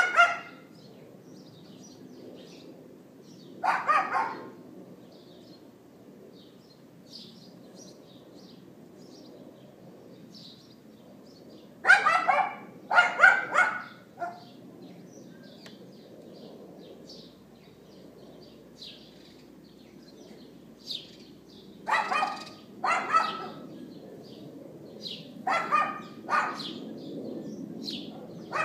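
A dog yapping outdoors in short bursts: single yaps or quick pairs a few seconds apart, with pauses of several seconds between. Small birds chirp faintly throughout.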